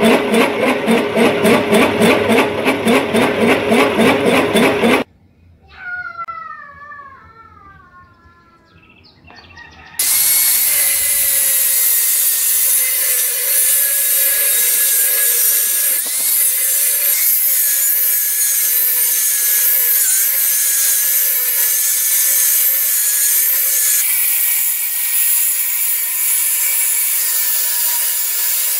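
A large cylindrical cutter on a machine spindle cutting a hole in thick steel plate, a rhythmic pulsing chatter of several beats a second, stops about five seconds in. After a quiet stretch with a few faint falling whistles, an angle grinder's cut-off disc cuts into the steel plate: a loud, steady whine that sags slightly under load at moments.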